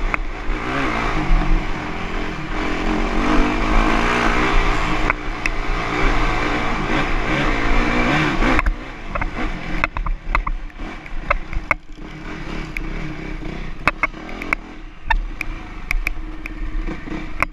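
Dirt bike engine revving hard, its pitch rising and falling, for about the first nine seconds, then dropping suddenly to quieter low running with a scatter of sharp clicks and knocks.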